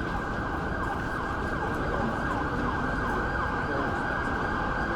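Emergency vehicle siren in a fast yelp, short falling sweeps repeating about three times a second, over the steady hum of street traffic.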